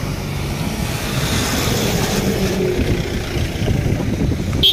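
Engine and road noise of a moving vehicle heard from inside the cabin, a steady low rumble, with one short sharp click near the end.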